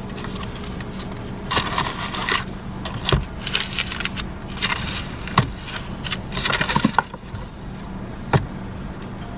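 Paper wrappers and a fast-food bag rustling and crinkling in several bursts as they are handled, with a few sharp knocks of items being set down, over the steady low hum of a car idling.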